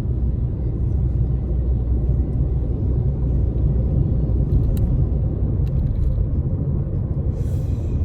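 Steady low rumble of a car's engine and tyres on the road, heard from inside the cabin while driving along at road speed.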